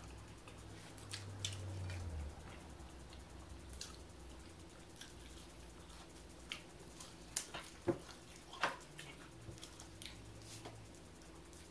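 Close-miked chewing and lip-smacking while eating breaded fish sticks: scattered wet mouth clicks, a few louder ones about two thirds of the way through, over a low steady hum.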